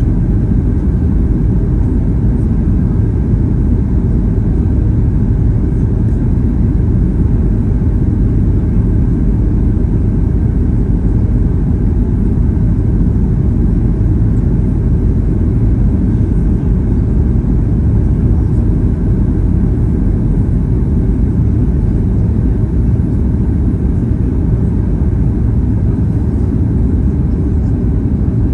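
Jet airliner cabin noise heard at a window seat during the approach descent: a steady, loud low rumble of engines and rushing air that does not change.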